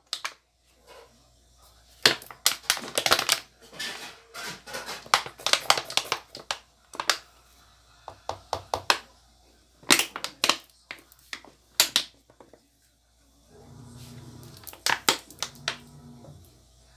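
A thin plastic detergent bottle crackling and popping in bursts as it is squeezed out. A spoon clacks against a plastic basin as the liquid is stirred in.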